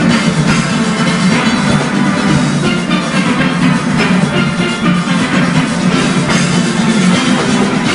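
A full steelband playing: many steelpans ringing out a dense, sustained arrangement over a steady percussion beat.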